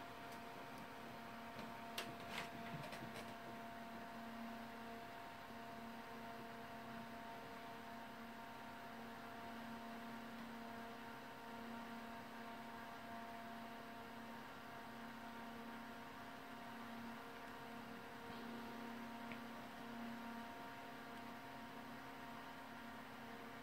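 Corsair ML140 Pro 140 mm PC case fan running at full speed: a steady, faint hum with a few higher constant tones over a hiss of moving air. A few soft clicks come about two to three seconds in.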